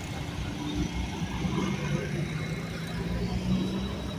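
Motor vehicle engine running in road traffic, a steady low hum over a rumble.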